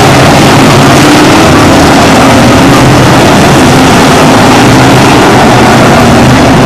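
A pack of figure-eight stock cars racing, their engines blending into a loud, steady drone whose pitches shift slightly as cars pass.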